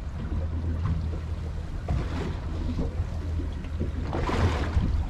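Steady low rumble of wind and water around a boat on open sea, with a short rushing, splash-like burst of noise about four seconds in.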